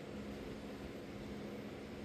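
Steady mechanical background hum with a constant low tone, unchanging throughout.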